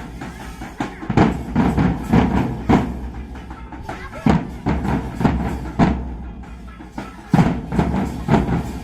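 Dhak, the Bengali barrel drum, beaten with sticks in quick clusters of sharp strokes, with a short lull about two-thirds of the way through.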